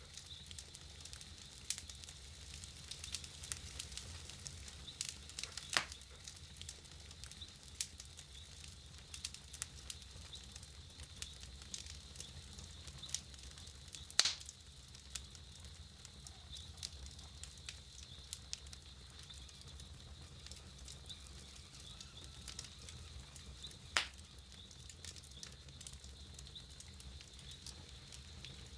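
Wood campfire burning, with frequent small crackles and three louder pops spread through.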